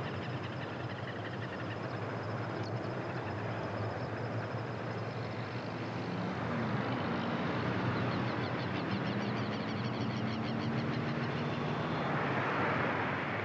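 Steady outdoor background of distant road traffic, with faint rapid high chirping over it from about halfway through.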